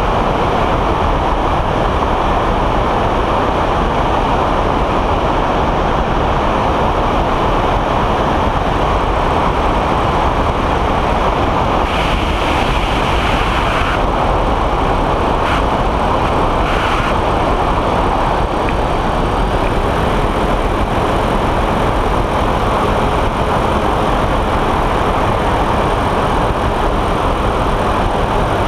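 Microlight trike in level flight: its engine and pusher propeller run steadily under heavy wind rush on the wing-mounted camera's microphone.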